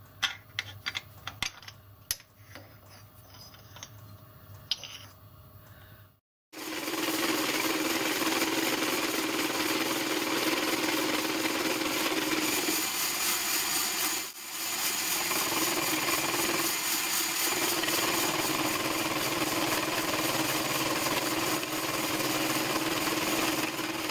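A few light metallic clicks and taps at the lathe. After a short break, a milling machine runs steadily with a constant hum, its end mill trimming the side of a cast iron steam chest cover. The sound dips briefly about halfway through.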